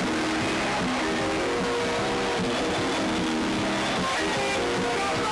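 Background music: several instruments holding notes together, moving to new notes every half second or so.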